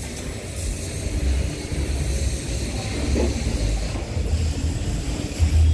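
Wind buffeting a phone microphone in uneven deep rumbles, over a faint steady hiss; the strongest gust comes near the end.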